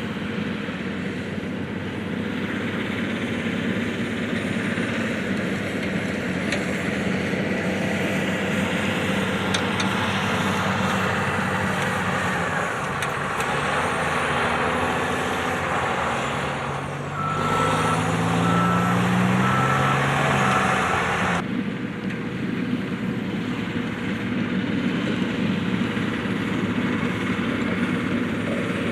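Steady vehicle road and engine noise. In the middle, for about four seconds, a row of evenly spaced short electronic beeps sounds over a rising engine note.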